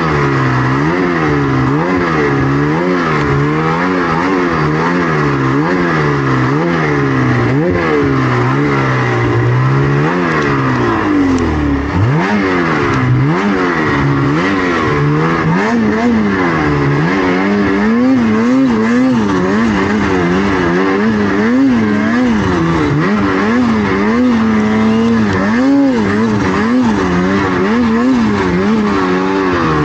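Snowmobile engine revved hard and eased off over and over, its pitch swinging up and down about once a second as the rider works the throttle, with no let-up.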